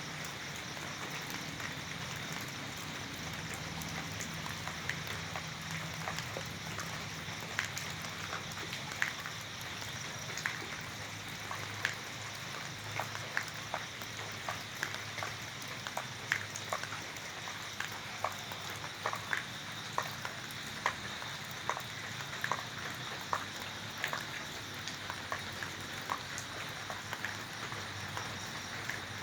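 Steady rain, with individual drops landing close by as short, sharp ticks over the hiss of the rainfall. The drops come more often after the first several seconds.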